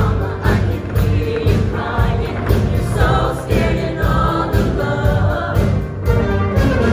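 Mixed high school show choir singing together over loud musical accompaniment with a steady beat.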